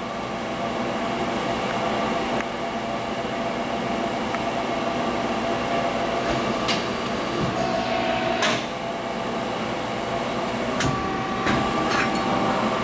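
Hydraulic CNC press brake cycling through a bend: a steady machine hum that swells slightly at the start as the ram comes down, with a few sharp clicks and clanks in the second half as it completes the bend and returns.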